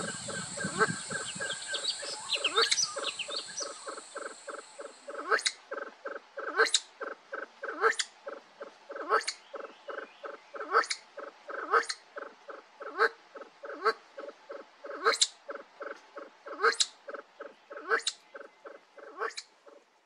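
Kalij pheasants clucking: a steady run of short soft clucks, about four a second, with a sharper call about every second and a half. A steady high hiss fades out about five seconds in.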